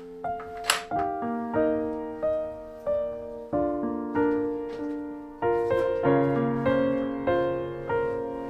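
Background piano music: a slow melody of single notes and chords, each struck and left to fade. One sharp click is heard just under a second in.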